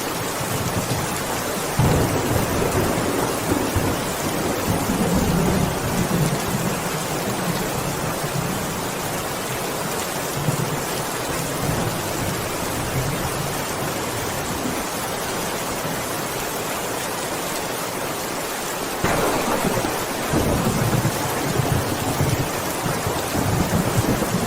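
Heavy rain falling steadily, a dense even hiss, with a deeper rumbling swell that comes in suddenly about two seconds in and again about five seconds before the end.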